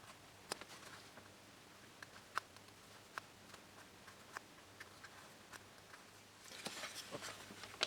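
Faint, scattered light clicks and ticks of small parts being handled on a workbench, the balsa rudder and its hinges, with a short spell of denser rustling and clicking near the end.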